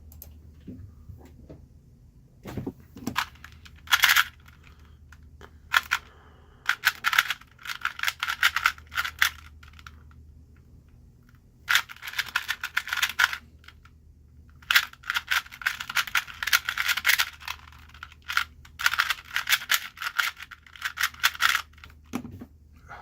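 Plastic speed cube being turned quickly by hand: rapid clicking and clacking of the layers in bursts of a few seconds, broken by short pauses between steps of the solve. A faint low hum lies underneath.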